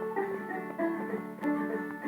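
Instrumental music: plucked string instruments play a melody of quick, separate notes, several a second.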